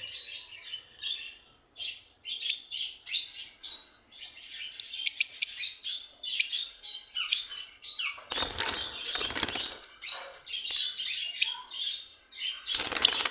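Pet lovebirds chattering with rapid, high chirps and tweets. About two-thirds of the way in there are two short, louder bursts of noise.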